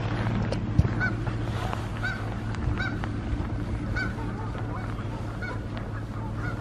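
Geese honking, a string of short calls about one or two a second, over a steady low hum.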